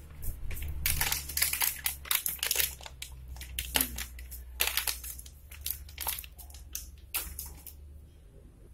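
Cooking oil heating in a wok, crackling and popping in irregular sharp pops that thin out near the end, over a steady low hum.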